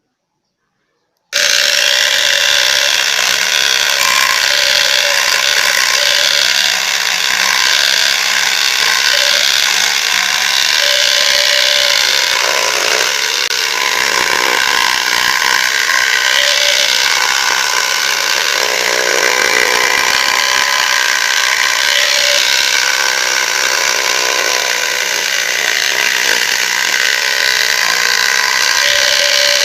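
Homemade power saw running and sawing wood, a loud steady machine noise that starts abruptly about a second in.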